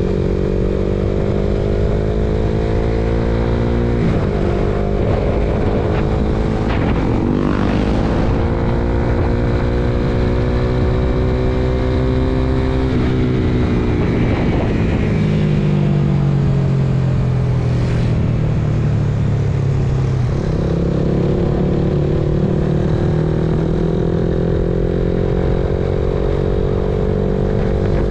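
Suzuki Raider Fi motorcycle's fuel-injected single-cylinder engine running on the road. Its pitch climbs, drops sharply a few seconds in and again about halfway through, stays lower for a stretch, then climbs again as the throttle and gears change.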